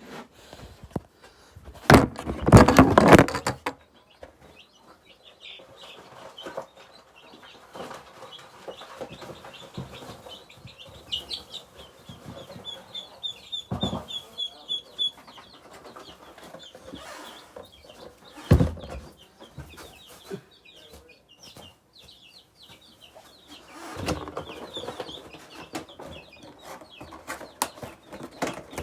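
Baby chicks and ducklings peeping, many short high cheeps through the whole stretch. A loud cluster of thumps and rustling handling noise about two seconds in, and single sharp knocks around the middle.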